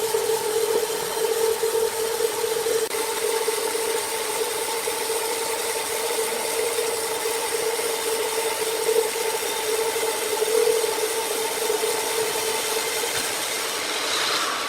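Sawmill machinery running steadily: a constant whine over a rush of mechanical noise, shifting slightly near the end.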